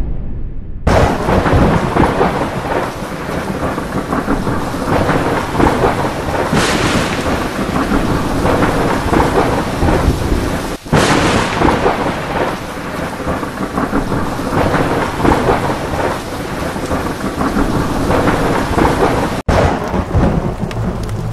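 Heavy rain pouring in a thunderstorm, with thunder rumbling. The storm comes in loud about a second in and swells twice more.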